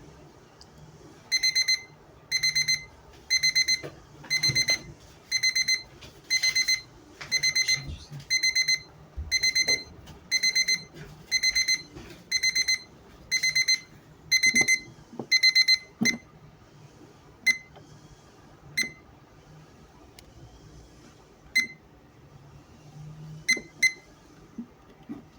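Electronic alarm clock of a FLARX desktop media station beeping: bursts of rapid high beeps, about one burst a second, for about fifteen seconds, then it stops. A few separate short clicks follow near the end.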